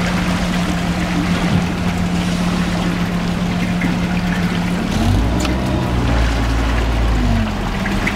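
Suzuki outboard motor running at low speed, its steady note over the rush of water along the hull. About five seconds in the note shifts and grows deeper and a little louder, settling back to the earlier pitch near the end.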